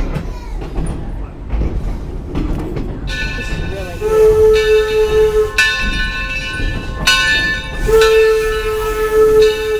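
Steam locomotive whistle blown in two long blasts over the running train, with a bell ringing and being struck again through the blasts.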